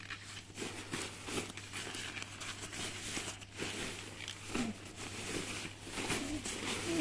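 Nylon shell of a goose-down sleeping bag and its stuff sack rustling and crinkling in uneven bursts as the bag is pulled out of the sack and lifted.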